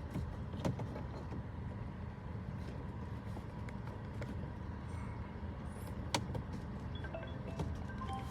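Toyota RAV4 engine idling steadily, with a few sharp clicks and some faint short beeping tones near the end.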